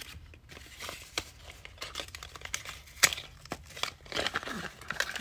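Webcam packaging crinkling and rustling as the camera and its cable are worked out of the box: irregular crackles with a sharp click about three seconds in, getting busier near the end.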